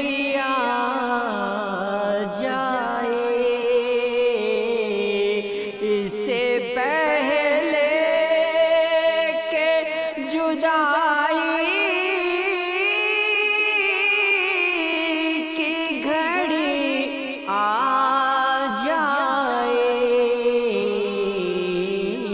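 Slow ghazal music: a sung melody drawn out in long, wavering, ornamented notes over a sustained accompaniment.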